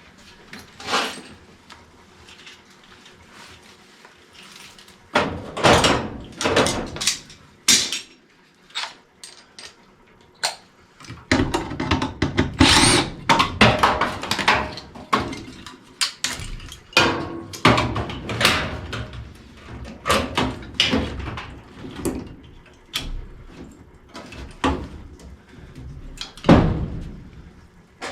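Irregular knocks, clanks and rustling as tools and furnace parts are handled during repair work. The sounds are sparse at first and grow busier and more continuous about a third of the way in.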